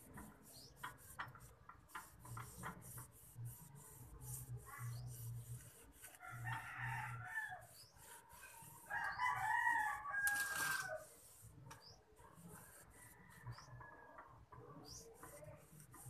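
A rooster crowing twice, about six seconds in and again, louder, about nine seconds in, over faint clicks and rustling of hands working potting soil in a metal bonsai tray.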